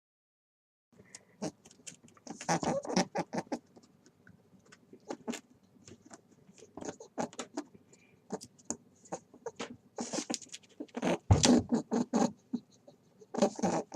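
Rabbit making a string of small, irregular clicking and scuffling noises, with one heavier thump about eleven seconds in.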